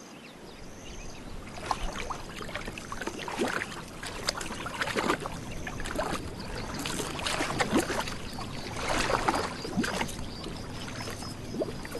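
Lions wading through shallow swamp water, with uneven splashing and water pouring off them; the splashes get louder after the first couple of seconds.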